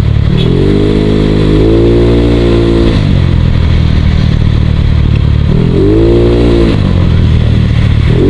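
Yamaha Mio Sporty scooter's single-cylinder four-stroke engine running under way, its pitch climbing as the throttle opens and dropping back as it eases off, twice, with a third climb starting at the very end.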